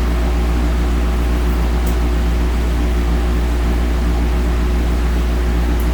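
Steady low electrical hum with a buzz and even hiss, with two faint clicks, about two seconds in and near the end.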